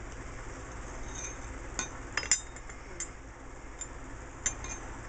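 Light metallic clinks and taps, about half a dozen, as a steel BMX sprocket and its bolt are handled and fitted against the crank arm.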